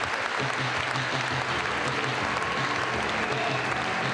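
A large indoor arena crowd applauding steadily, with a low, regular pulse underneath.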